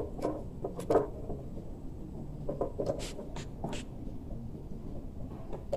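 Light, irregular taps, clicks and scrapes from a small medicine container or dropper being handled as liquid dog vitamins are mixed.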